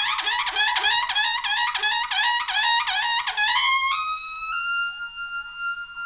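Trumpet sounding a martial call: a run of quick repeated high notes, each sliding up into pitch, then a long high note that steps up twice and is held.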